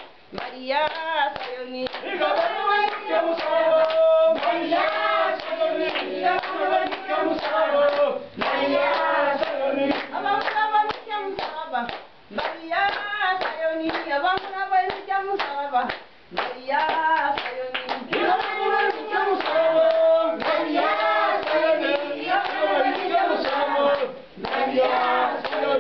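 Church congregation singing a hymn together, with hand clapping on the beat. The singing comes in phrases, with brief breaks about every four seconds.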